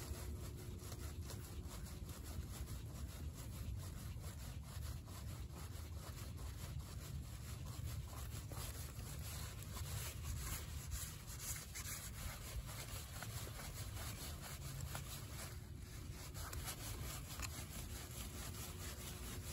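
Main water shutoff gate valve being turned closed by its handwheel: faint, continuous rubbing and scraping from the wheel and stem as it turns, over a low steady rumble.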